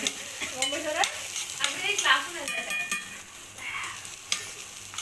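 Chicken frying in a pan with a steady sizzle, stirred with a utensil that clicks and scrapes against the pan now and then.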